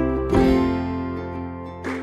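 Background music of a strummed acoustic guitar: a chord struck about a third of a second in rings and slowly fades, with a lighter strum near the end.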